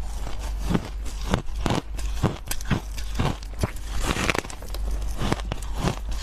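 Freezer frost being bitten and chewed: a run of quick, irregular crunches, two or three a second.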